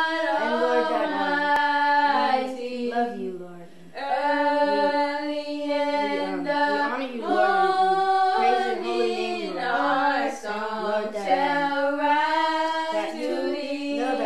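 A woman singing unaccompanied in slow, held notes that rise and fall, with a brief pause about four seconds in.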